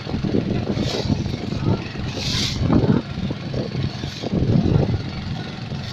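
Four-stroke EFI engine running steadily on gas fuel (BBG) through a converter kit, with short hissing bursts about one, two and four seconds in.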